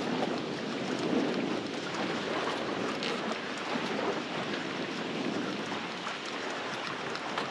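Steady rushing hiss of strong wind and choppy water splashing around a small fishing boat, with no distinct single events.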